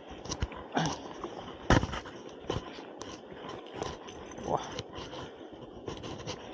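Steady rush of river current with scattered knocks and scrapes from an angler scrambling along the bank while playing a trout; the sharpest knock comes a little under two seconds in.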